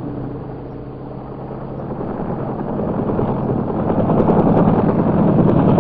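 Helicopter engine and rotor running, growing louder from about two seconds in.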